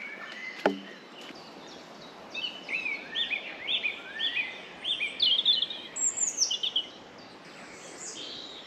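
A songbird singing a fast run of bright chirping notes, some sliding down in pitch, for about four seconds starting a couple of seconds in, over a steady woodland background hiss. A single short click comes just before.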